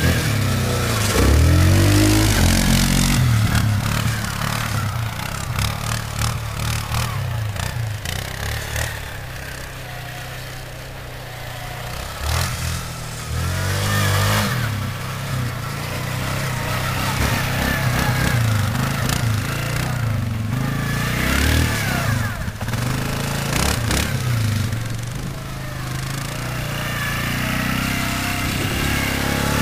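Yamaha Grizzly quad's engine revving up and down again and again as it is ridden, fading for a while about a third of the way in and growing louder again near the end, with gusts of wind buffeting the microphone.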